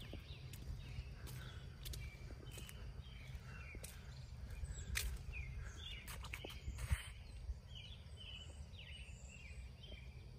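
Outdoor ambience: birds chirping on and off over a steady low rumble, with a few faint clicks.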